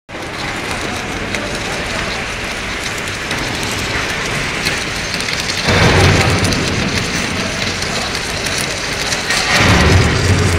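Submerged arc welding under way: a steady crackling hiss from the arc burning under the flux. A loud low machine hum cuts in a little over halfway through and swells again near the end.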